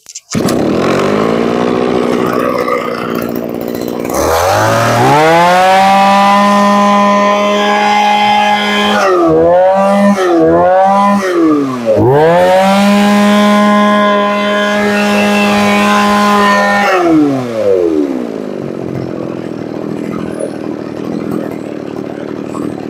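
Mitsubishi TB23 two-stroke brush cutter engine starting at once on a short half pull and idling. It is then revved hard to very fast, high revs and held there, with the throttle blipped several times in the middle, before dropping back to idle near the end.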